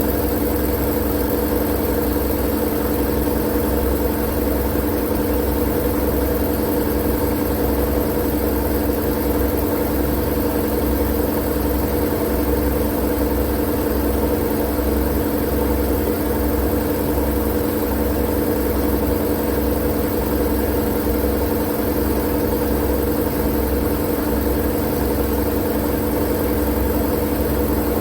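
Steady, unchanging white noise for sleep: an even hiss with a low hum and rumble underneath, no breaks or changes.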